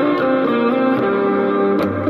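Electric guitar played through an E.C.R Electronics Dumbloid pedal. Sustained picked notes change several times, with a fresh pick attack near the end.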